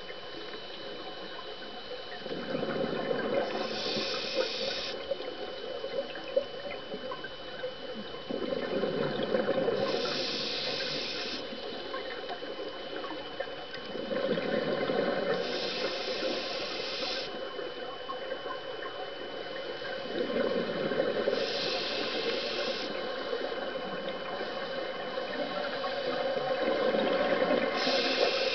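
Scuba diver breathing through a regulator underwater: a rush of noise and bubbling, then a short hiss, repeating about every six seconds, five breaths in all.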